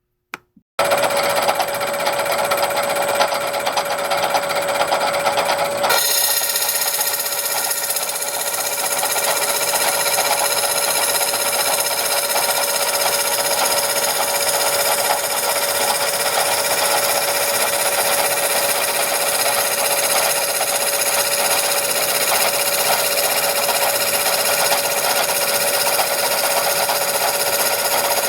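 A machine tool running steadily while machining a cylinder for a model engine, with a strong steady whine over a rapid mechanical chatter. The sound changes abruptly about six seconds in, then runs on.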